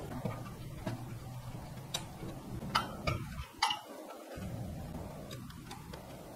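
Metallic clicks of a wrench on a bolt as a nut is tightened on a metal plate: a handful of sharp separate clicks, the loudest two in the middle, over a low steady hum.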